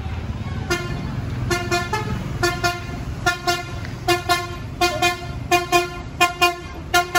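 Tour bus's Basuri telolet musical horn sounding a quick rhythmic run of short toots in pairs and triplets, over a low engine rumble.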